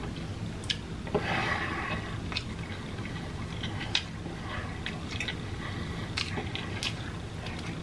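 Close-miked chewing of a mouthful of pork fried rice: wet, squishy mouth sounds with many short sharp clicks and smacks, and a longer noisy rustle about a second in.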